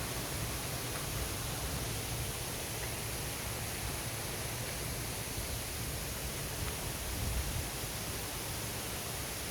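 Steady, even noise with no distinct events: a hiss across the range with a low, fluctuating rumble underneath.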